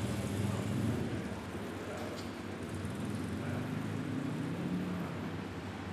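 Ford GT GT1 race car's 5.3-litre Roush Yates V8 idling steadily, its low note wavering slightly.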